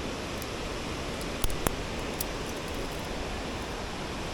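Steady rushing of falling water in a mountain gorge, with a few short sharp clicks about a second and a half to two seconds in.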